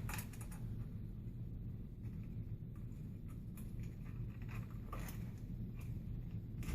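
Faint, scattered light clicks and ticks of small metal chainring bolts being unscrewed and pulled from a bicycle crank, over a low steady room hum.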